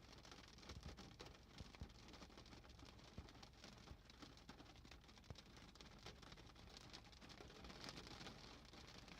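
Faint light rain: scattered drops ticking irregularly over a low hiss.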